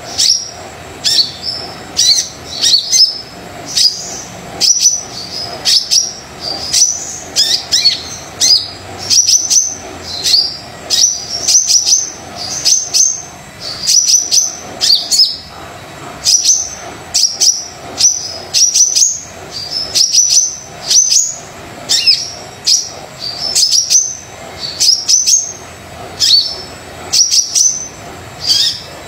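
A brown-breasted sunbird ('kolibri dada coklat') calling in full voice: short, sharp, high chirps, each a quick stuttering phrase, repeated about once a second. A steady faint hum lies underneath.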